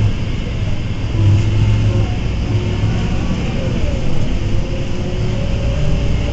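Iveco EuroRider bus's Tector diesel engine and ZF 4HP Ecomat automatic gearbox heard from inside the cabin, running under way with a steady low drone. A whine dips in pitch about four seconds in, then climbs again as the bus pulls away.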